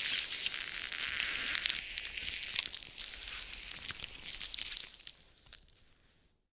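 Crackling, hissing static full of small clicks. It thins out over the last second or so, then cuts off abruptly.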